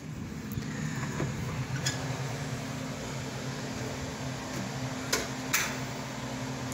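Steady mechanical hum of a running fan, with a few brief clicks: one about two seconds in and two close together a little past five seconds.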